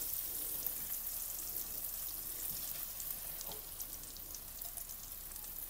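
Chili spice paste sizzling softly in hot oil in a frying pan: a steady hiss with fine crackles that fades slightly.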